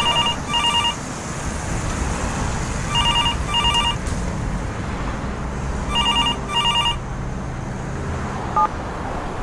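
Telephone ringing in pairs of short rings, three double rings about three seconds apart, over a low steady rumble. A short beep sounds near the end.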